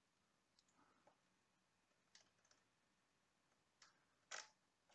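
Near silence, broken by a few faint short clicks.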